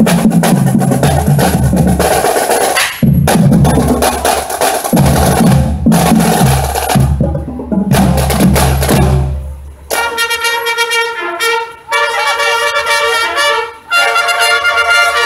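Marching band: the drumline plays a cadence on snare and bass drums. About ten seconds in the drums stop, and the brass comes in with a tune played in short phrases.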